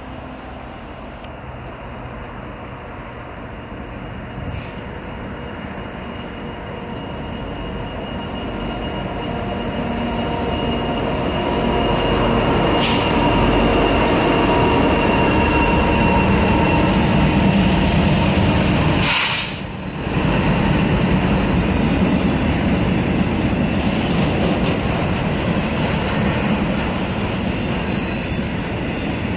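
A train running by, the rumble growing louder over the first dozen seconds and staying loud, with a thin steady high squeal from the wheels on the rails.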